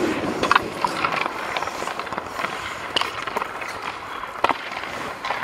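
Ice hockey skate blades scraping and carving on rink ice, with a few sharp knocks of a stick striking pucks.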